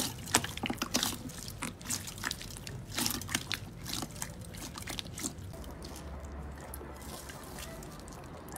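Wet clear slime being squeezed and pressed by hand in a glass bowl: sticky squishing with many sharp crackling pops and clicks, which thin out after about five seconds into a quieter, more even stretch.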